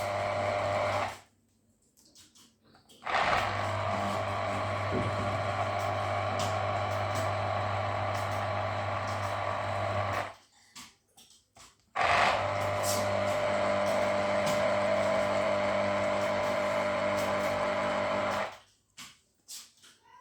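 Electric juicer's motor running steadily as lemons are juiced. It runs in three stretches and cuts out twice for about two seconds between them.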